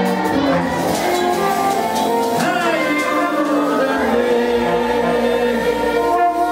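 Live band music from saxophones, trumpet, electric guitar and keyboard, with a man singing a worship song into a microphone.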